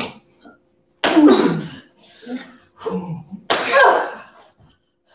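People's grunts and sharp exhaled cries during a stage fight, the vocal effort and pain reaction that sell a non-contact knee and kick: one about a second in, another loudest about three and a half seconds in, with smaller grunts between.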